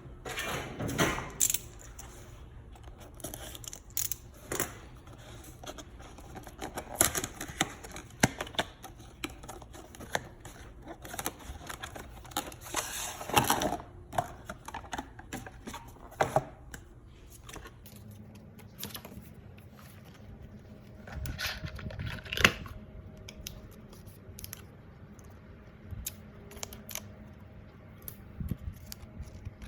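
Smart light switch's cardboard box and packaging being handled: irregular rustling, scraping and sharp clicks.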